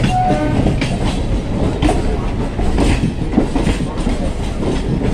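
Electric multiple-unit suburban local train running, heard from its open doorway: a steady rumble of wheels on track with irregular clacks over the rail joints.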